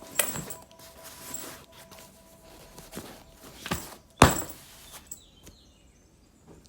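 A backpack being handled and closed: fabric rustling and a few short knocks, the loudest a sharp knock about four seconds in.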